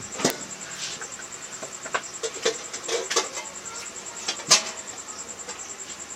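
A few sharp clicks and knocks, the loudest about four and a half seconds in, over a steady high-pitched pulsing chirp like a cricket's. No drill motor is heard running.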